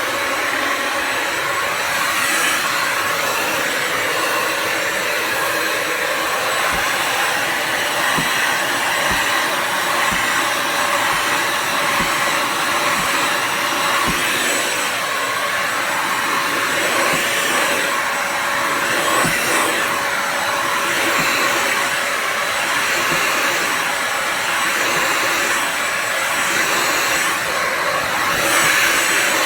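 Bissell Symphony Pet vacuum and steam mop's vacuum motor running steadily, with a few faint ticks.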